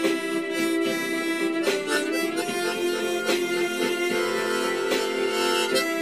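Harmonica playing a Korean trot song melody, with long held notes.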